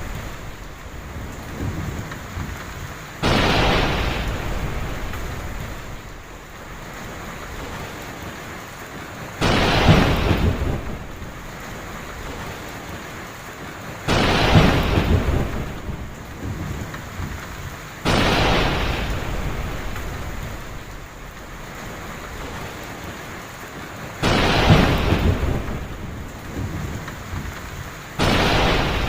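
Heavy rain falling steadily, with six sudden thunderclaps, each rumbling away over a few seconds.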